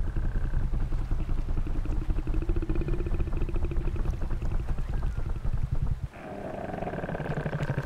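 Tyrannosaurus rex courtship call, a designed creature sound: a deep, rapidly pulsing rumble, changing character about six seconds in.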